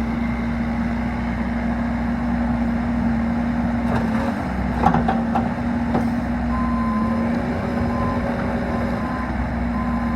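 Bobcat E45 mini excavator's diesel engine running steadily, with a few metallic clanks about halfway through. In the last few seconds a high alarm beeps repeatedly, the machine's travel alarm.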